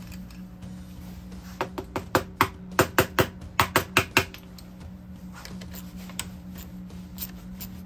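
A quick run of about a dozen sharp metallic clicks and taps over roughly two and a half seconds, starting about a second and a half in. They come from hand tools working on the end housing of a Bosch 24 V starter motor held in a vise, and some of them ring briefly. A steady low hum runs underneath.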